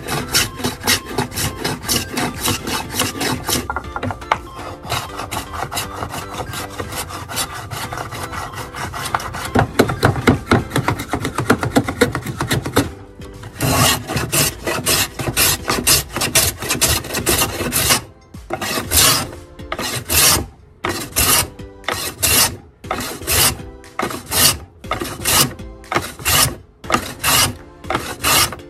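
Small Japanese wooden hand plane with a sliding width fence, shaving the edge of a thin board in quick back-and-forth strokes. It cuts cleanly. The strokes run fast and close together at first, then come as separate strokes about one and a half a second from about halfway.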